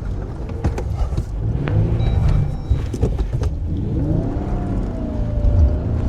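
Jeep Gladiator's engine revving under load as the truck struggles through a deep muddy dip, its pitch climbing about four seconds in and then holding, with scattered knocks and clunks from the truck.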